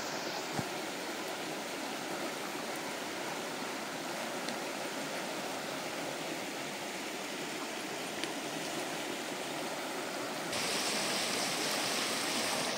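Steady rushing of a shallow river running over stones and small rapids. About ten seconds in, the sound turns a little louder and hissier.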